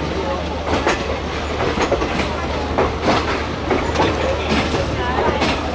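Passenger train coaches rolling into a station, their wheels clicking over the rail joints in an uneven clickety-clack over a steady low rumble.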